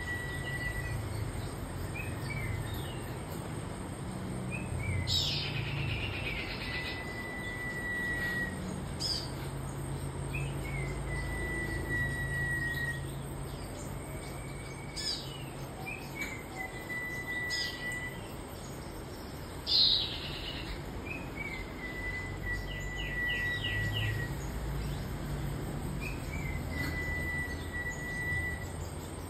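Caged huýt cô songbird singing: the same phrase over and over, a few short high chirps then one long, slightly falling whistle, about every three to four seconds. A short loud burst of noise cuts in once, a little past two-thirds of the way through.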